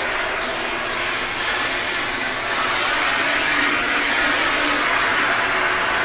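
Shark Apex vacuum running in powered lift-away mode: a steady rush of motor and suction air through the wand and attachment, growing a little louder partway through.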